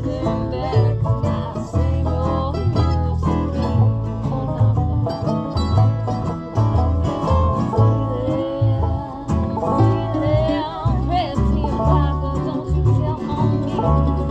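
Bluegrass band playing: banjo and guitar picking over a steady walking bass line.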